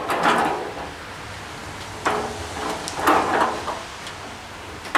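Sheet-metal tool chest being handled and shut: three bursts of metal scraping and rattling, near the start, about two seconds in and about three seconds in.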